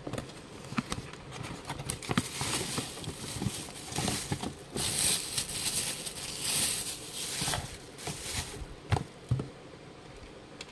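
Handling noise from a cardboard box and plastic toy alarm clocks: rustling and crinkling with scattered clicks and knocks, loudest in a few rustling bursts in the middle and a pair of sharp knocks near the end.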